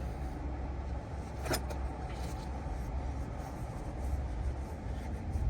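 Steady low hum in the background, with a single sharp click about a second and a half in and a few fainter ticks.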